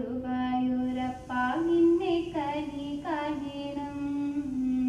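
A woman's voice singing a devotional song to Guruvayurappan (Krishna), holding long notes with sliding ornaments between them.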